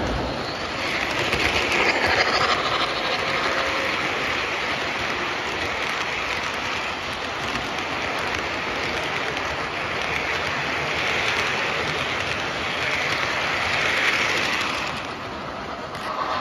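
O-scale model train running on three-rail track: a steady rolling rumble of metal wheels on the rails with some clickety-clack, swelling in loudness a few times as cars pass close.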